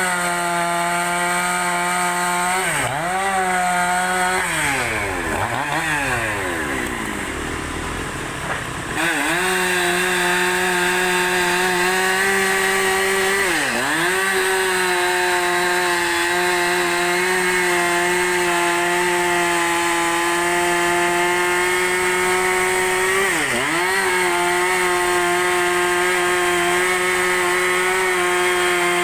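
Two-stroke chainsaw at high revs, ripping a large log lengthwise. Its engine note swings down and up several times in the first few seconds, then holds steady, dipping briefly twice more.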